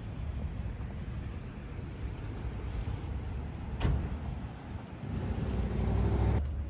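Street traffic: a steady low rumble of passing motor vehicles, swelling louder in the last second or two and then cutting off abruptly, with a single sharp click a little under four seconds in.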